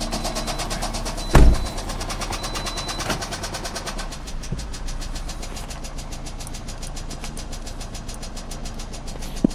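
2009 Pontiac Vibe's 2.4-litre inline-four engine running with a rapid, even knocking from a worn connecting-rod bearing (rod knock). A single loud thump sounds about a second and a half in.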